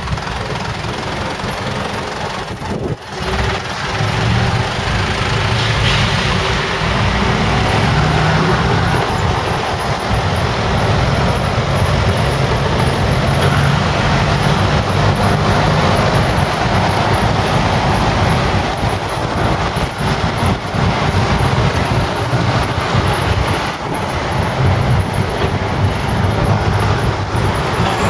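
Engine and road noise of a songthaew pickup truck, heard from its open rear bench area, running steadily on the move. The noise dips briefly about three seconds in, then grows louder.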